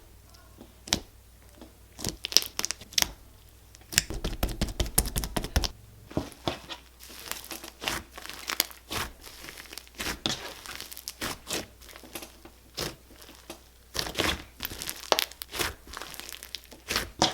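Homemade slime being squished and stretched by hand close to the microphone: an irregular run of sharp pops and crackles, with a dense stretch of crackling about four seconds in that lasts about two seconds.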